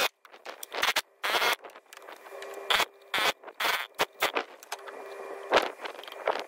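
Hand tools being worked on a diesel engine's top end: a series of short rasping bursts and sharp metallic clicks at uneven intervals.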